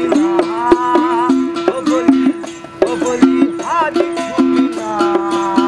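Baul folk music: a single-string iktara plucked in a steady rhythm, its note repeatedly dropping to a lower pitch and back, under a man's wavering singing voice.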